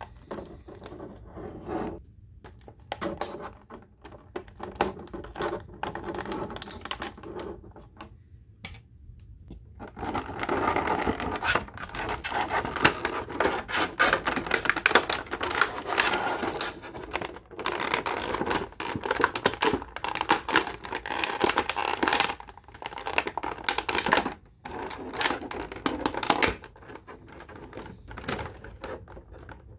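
Clear plastic blister tray crinkling and crackling in irregular clicks as an action figure is worked out of it by hand. The crackling is sparse at first, turns dense and louder for about ten seconds from a third of the way in, then thins out again.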